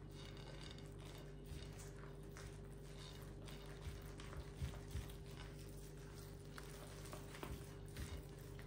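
A hand mixing and kneading soft, shaggy yeast dough in a glass bowl: faint, irregular squishing with soft taps. A steady low hum runs underneath.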